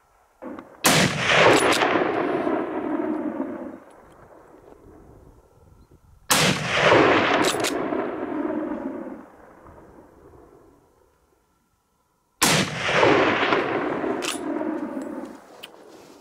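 Three rifle shots about six seconds apart. Each sharp crack is followed by a long echo rolling back off the surrounding hills and fading over about three seconds.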